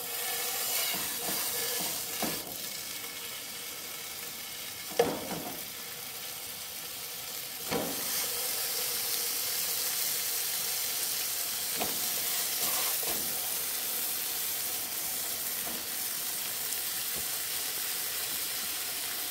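Bacon strips sizzling in a nonstick frying pan over a propane camp stove, a steady frying hiss broken by a few short knocks as more strips go in.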